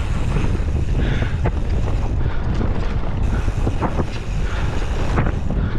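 Wind buffeting a GoPro's microphone in a strong headwind while riding, a heavy steady rumble with scattered clicks and knocks throughout.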